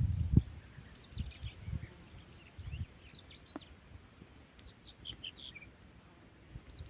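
Small songbirds chirping and twittering in short phrases, several times, over low rustling thumps that are loudest at the very start.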